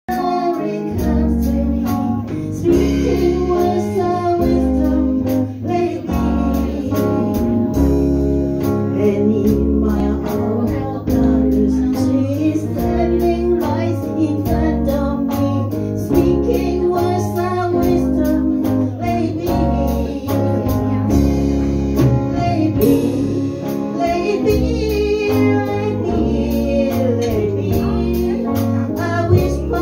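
A pop song: a voice singing over a steady beat, a deep bass line and guitar.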